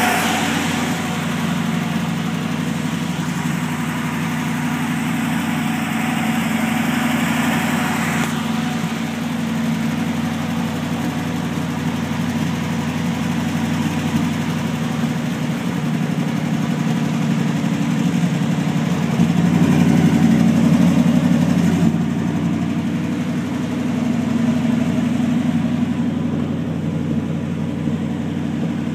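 A 1968 International 1100C pickup's 304 V8 idling steadily, a little louder for a couple of seconds about two-thirds of the way through.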